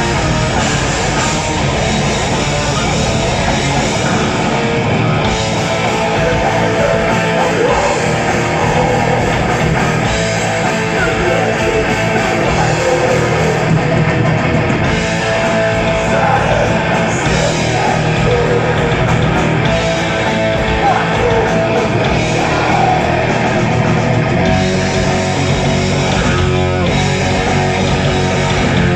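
Heavy metal band playing live, loud, with distorted electric guitars at the front of the mix.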